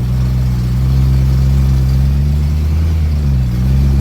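BMW E93 M3's 4.0-litre V8 idling steadily through the factory exhaust, with its cats, resonators and muffler still in place. The low note shifts slightly about three and a half seconds in.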